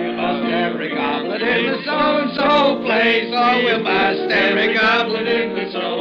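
A group of men singing together boisterously, many voices overlapping, heard on a narrow-band 1940s radio recording.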